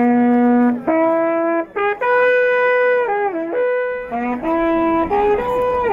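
Several buciums, the long wooden Romanian shepherd's horns, blowing a call of long held notes that step up and down in pitch. It is the signal to the shepherds that it is time to set off.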